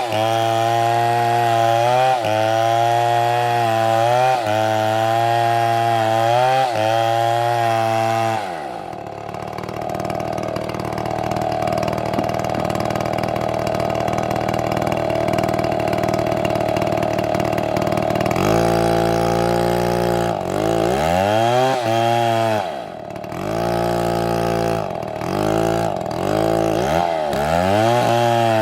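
Two-stroke chainsaw cutting into a tree at full throttle, its engine note steady with brief dips as it takes load. About a third of the way in the pitch falls away and it runs on a rougher, steadier note, then from about two-thirds in it is revved up and bogs down over and over as the chain bites.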